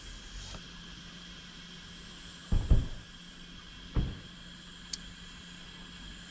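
Steady outdoor hiss, with two short low thumps, the first about two and a half seconds in and the second about four seconds in, and a faint click shortly after.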